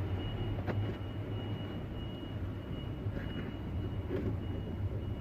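A steady low hum with a faint high whine inside a car, and a few light clicks and rustles of a cable being tucked behind plastic interior trim.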